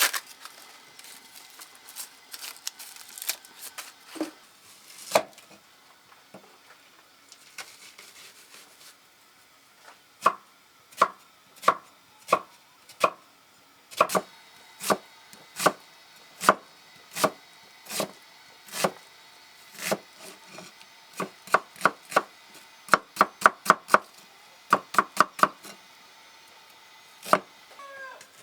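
Knife chopping on a wooden cutting board. A few scattered cuts come first, then steady strokes a little faster than one a second, and a quicker run of strokes near the end.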